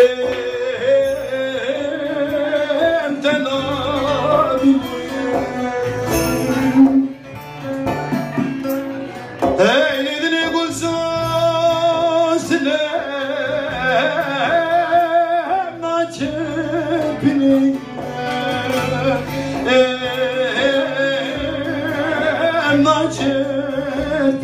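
A man singing a Turkish folk song (türkü) through a microphone and PA, his voice wavering and ornamented, over an amplified bağlama (long-necked saz) played with plucked strings.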